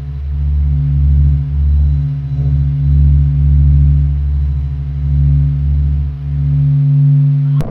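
Deep, steady electronic drone of a space-sound sonification, low pitched with faint higher overtones, swelling and dipping unevenly in loudness. It cuts off abruptly near the end, where a rougher, noisy rumble takes over.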